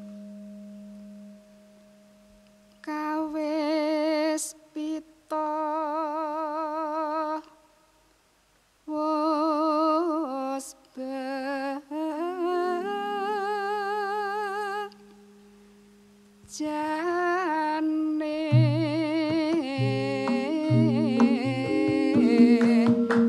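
A Javanese female singer (sindhen) sings a solo bawa, the unaccompanied vocal introduction to a gamelan piece, in slendro tuning. She sings long wavering phrases with heavy vibrato, separated by short pauses, over a low held tone that fades out at the start. About eighteen seconds in, the gadhon gamelan enters with drum strokes and metallophones, and the sound grows fuller and louder.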